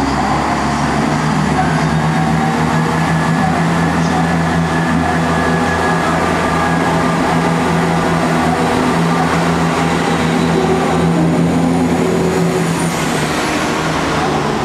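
Class 170 Turbostar diesel multiple unit pulling away from the platform, its underfloor diesel engines working under power with a steady note that fades near the end as the cars pass.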